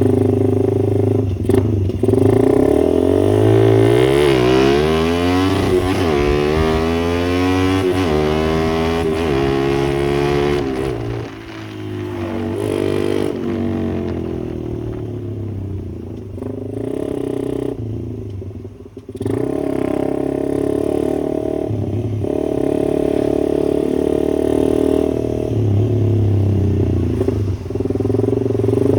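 Suzuki Satria FU motorcycle's single-cylinder engine being warmed up: idling, revved up over a few seconds and back down, then settling into a steady idle.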